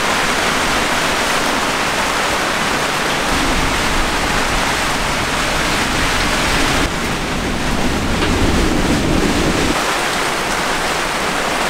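Storm at sea heard from inside a sailing yacht's enclosed cockpit: a steady, loud rush of gale-force wind, heavy rain and waves around the boat.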